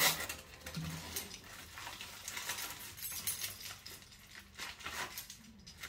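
Rustling of plastic wrap and styrofoam packing, with scattered light clicks, as glass chandelier parts are unwrapped and lifted out of their foam tray.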